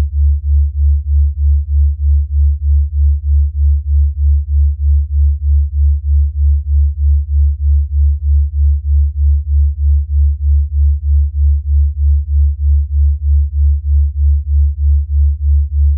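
Synthesised low tone, pulsing evenly about three times a second: a delta-wave pulse tone made as a sleep and recovery aid.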